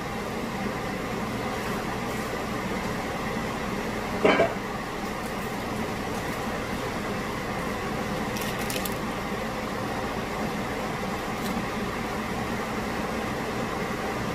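Butter sauce with garlic, onions and seasonings simmering in a pot on the stove, a steady even sizzle. A brief louder sound about four seconds in, and a few faint clicks later.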